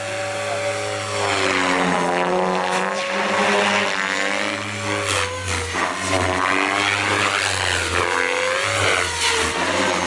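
Goblin 700 radio-controlled helicopter with a three-blade main rotor in flight. Its rotor and motor whine keeps rising and falling in pitch as it manoeuvres.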